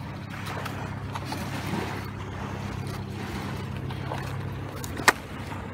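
Waves washing on the shore over a steady low hum, with cardboard packaging handled close by and one sharp click about five seconds in.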